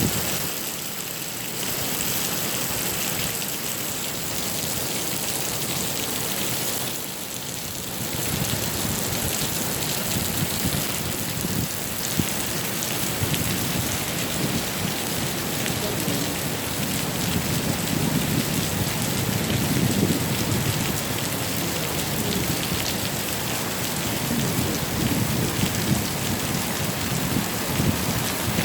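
Heavy rain pouring down in a steady downpour. A low rumble swells in and out through the second half.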